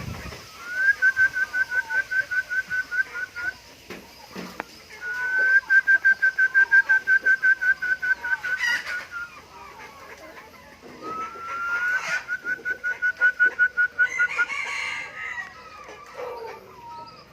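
Chicken calling three times. Each call is a rising note that breaks into a rapid run of even, same-pitched notes lasting three to four seconds.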